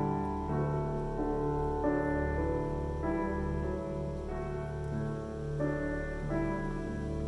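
Background music of slow piano chords, each held for about a second before the next.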